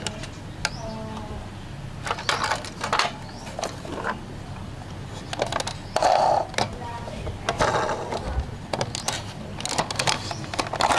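Hard plastic toy vehicles being handled: a toy truck and then a toy ambulance, with scattered clicks and rattles as they are turned in the hands and the ambulance's sliding side door is pulled open.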